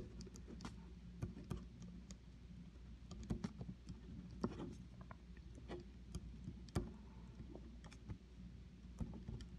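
Ballpoint pen writing on paper: faint, irregular short scratches and taps as letters and symbols are written, over a steady low hum.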